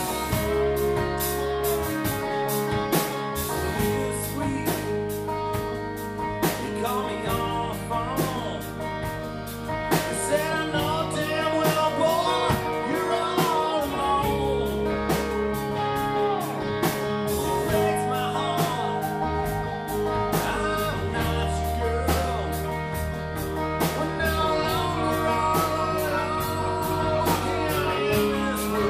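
Live rock band playing: electric guitar, electric bass and drum kit, with a man singing at times over the band.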